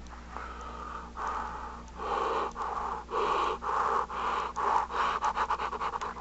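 A person breathing heavily through a rubber mask: slow, noisy in-and-out breaths that quicken toward the end into rapid, short panting.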